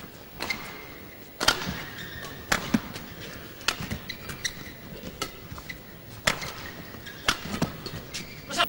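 Badminton rally: rackets strike the shuttlecock about once a second, sometimes two hits close together. Between the hits there are short squeaks of court shoes on the mat.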